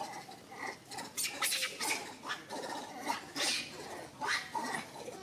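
Macaques calling in a series of short, separate cries and squeaks.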